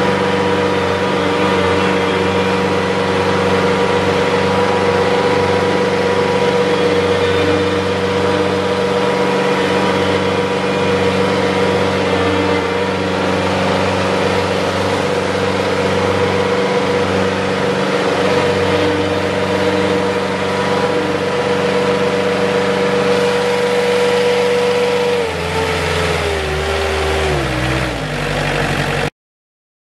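Bad Boy mower's diesel engine running steadily as the machine drives, with a steady high whine over the engine note. About 25 seconds in, the pitch drops step by step as it slows, then the sound stops suddenly.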